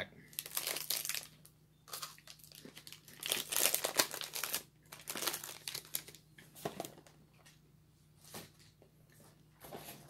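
Snack-bar wrapper crinkling and rustling in the hands in irregular bursts, loudest about three to four and a half seconds in, as the wafer bar and its cardboard box are handled.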